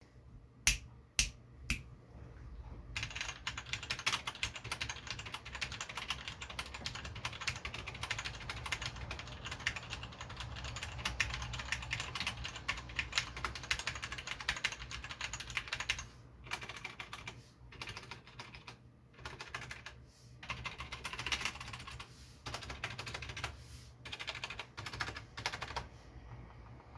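Typing on a Compaq MX11800 mechanical keyboard with unlubricated Cherry MX Brown tactile switches. Three louder single keystrokes open it, then fast continuous typing, breaking in the second half into shorter bursts with brief pauses.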